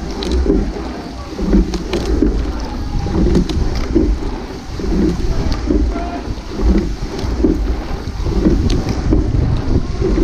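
Wind buffeting the microphone in a constant low rumble, with irregular shouted voices and a few sharp clicks on top.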